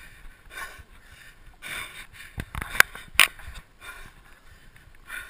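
A hand-pulled chariot's metal frame rattling and bumping over rough grass, with irregular rushes of noise and two sharp knocks about three seconds in.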